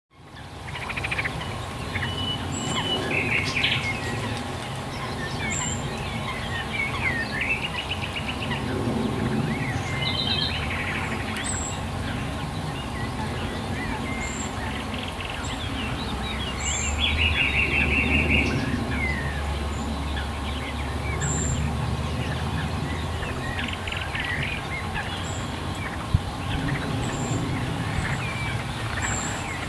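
Several birds singing and calling together: a mix of short chirps and rapid trills, with a thin high note repeating every couple of seconds, over a low steady rumble.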